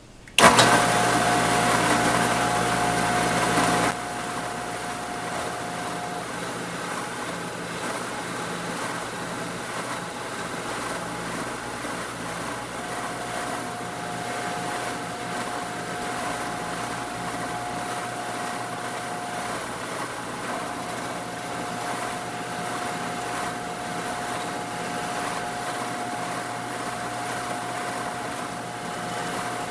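Drill press motor switched on about half a second in and running steadily while a twist drill bit cuts screw holes through an aluminum plate. It is louder for the first few seconds, then settles to an even hum with a faint steady tone.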